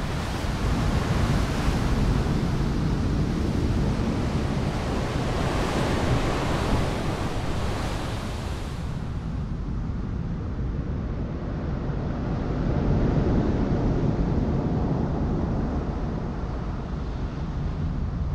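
Sea surf churning and breaking over rocks: a steady rushing wash with a deep rumble beneath, swelling and easing several times. About halfway through the sound turns duller as its highest hiss drops away.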